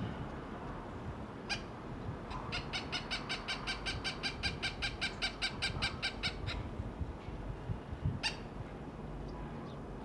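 Cooper's hawk giving its harsh cackling call: one note, then a rapid even run of about twenty 'cak' notes at about five a second, then one more note near the end.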